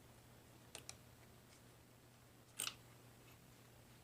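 Near silence broken by a few faint, short metallic clicks: a magnet pickup tool touching and lifting a valve bucket and shim in the cylinder head. Two come close together about a second in, and a slightly louder one about two and a half seconds in.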